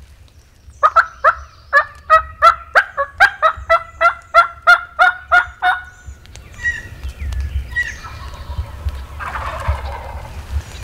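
Turkey yelping: a long run of about fifteen evenly spaced yelps, about three a second, each note breaking downward in pitch. A few softer, scattered calls follow.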